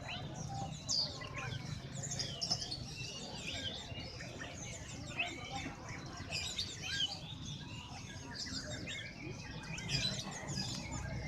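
Many caged songbirds chirping at once, a dense overlapping chorus of short high calls with no pause, over a low steady background rumble.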